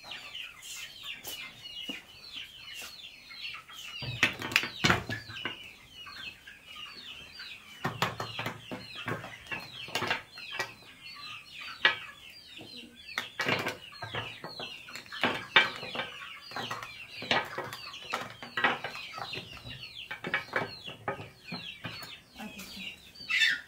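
Chickens calling throughout: many short, high peeps that fall in pitch, repeated quickly one after another. Scattered clicks and knocks come from makeup items being handled on a table.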